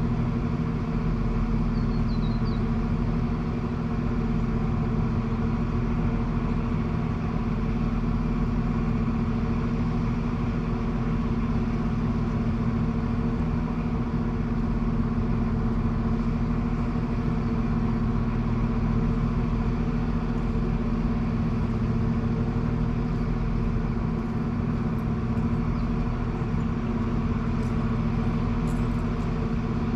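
Diesel Tilt Train's diesel engines idling steadily while the train stands in a passing siding, a constant hum of several low pitched tones.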